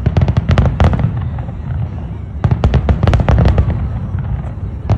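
Fireworks display: quick volleys of sharp bangs and crackles over a steady deep rumble. One volley comes in the first second and another from about two and a half seconds in.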